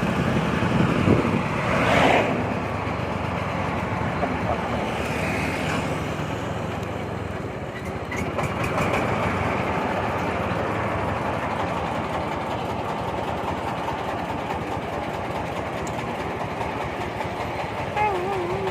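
Corn sheller machine running steadily, powered by its 26 HP Jiangfa engine.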